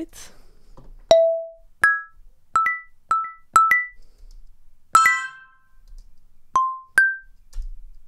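Sampled xylophone patch from a software synth being auditioned, with short struck notes that fade quickly. There are about ten single notes at changing pitches, a few in quick succession, and a fuller chord of several notes about five seconds in.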